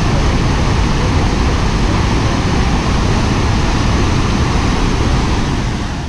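Dhuandhar Falls, a large waterfall on the Narmada River dropping about 30 m: the loud, steady rush of water plunging over the rocks.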